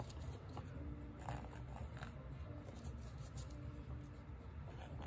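Faint room tone: a steady low hum with a few soft clicks and scratches.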